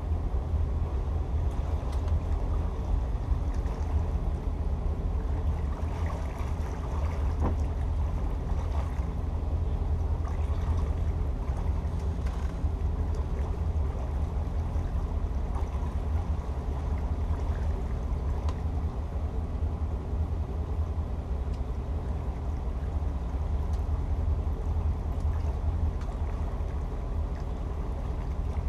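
Twin 7.4-litre (454 cu in) GM-block V8 inboard engines of a Sea Ray 330 Sundancer running at low speed, a steady deep drone heard from the helm.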